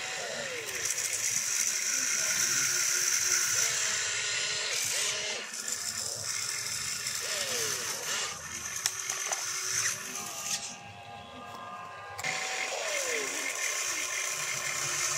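Radio-controlled toy excavator's small electric motors and gearboxes running as the boom, arm and bucket move, a grinding whir with a whine that glides up and down in pitch with each movement.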